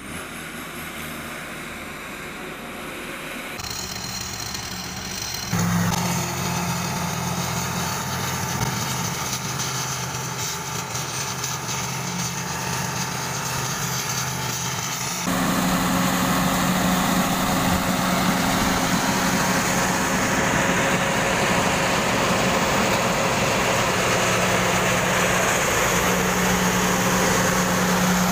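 Rice combine harvester's engine running steadily with a constant low hum as the machine works. It is quieter in the first few seconds and steps louder at clip changes, about six seconds in and again about halfway through.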